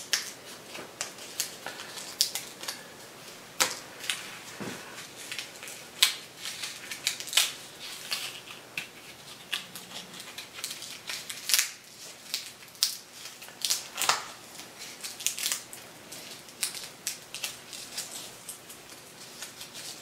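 Dried chile peppers being torn open and stemmed by hand to get the seeds out: irregular sharp crackles and crinkles of the dry skins, a few every second.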